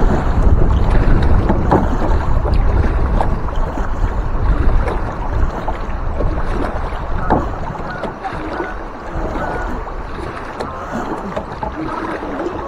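Canoe paddling on moving river water, with wind rumbling on the microphone and a few light knocks. The rumble eases about seven seconds in.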